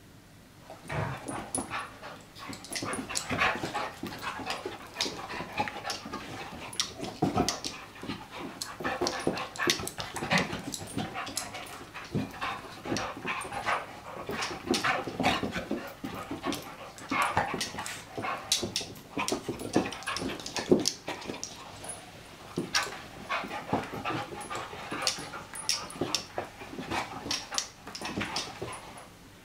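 Two dogs play-fighting, a large ginger dog and a small black dog: a busy, irregular stream of yips, whimpers and panting mixed with the scuffles and thumps of their paws. It starts about a second in and goes on almost to the end.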